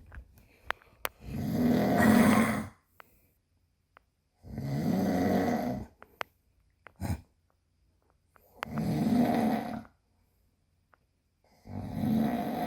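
A man snoring in his sleep: four loud snores, each over a second long, coming about every three and a half seconds, with faint clicks between them.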